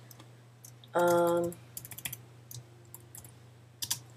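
Typing on a computer keyboard: scattered light key clicks, with a louder cluster near the end. About a second in, a person's voice gives a short held hum lasting about half a second.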